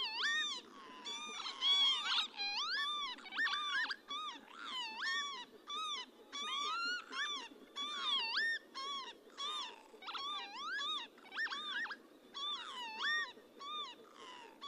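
Several northern lapwings calling together: many overlapping slurred 'pee-wit' calls, each sliding up and down in pitch, a few every second.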